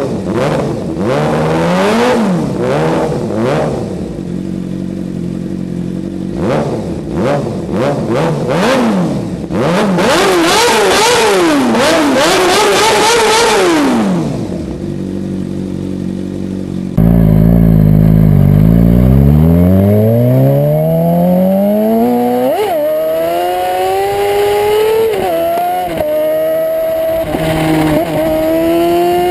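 Suzuki GSX-R600 inline-four through an aftermarket slip-on silencer, blipped repeatedly while parked, each rev rising and falling quickly, then settling to a steady idle. Then, riding, it accelerates hard with the pitch climbing steadily, dropping briefly at each of three upshifts.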